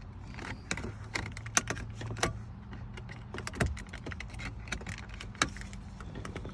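Irregular plastic clicks and light knocks as the gear shifter knob on a 2014 Chrysler 300 is worked and pulled off the shift lever, over a steady low hum.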